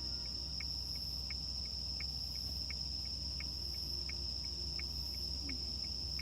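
Crickets singing at night: one high continuous trill held steady, with another cricket's short chirps repeating about three times a second, over a low steady hum.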